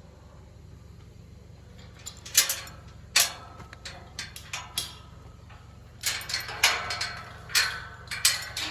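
A metal chain clanking and rattling against a metal gate as it is handled to open the gate: a run of sharp metallic clanks with a ringing after them, starting about two seconds in and coming in two bursts.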